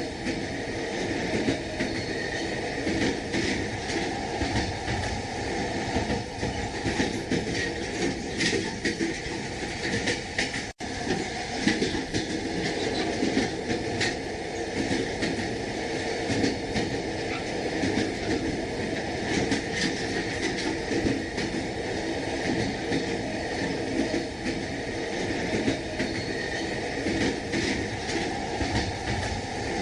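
Passenger train running along the track, heard from inside the carriage: a steady rumble with the wheels clacking over the rail joints. The sound drops out for a moment about eleven seconds in.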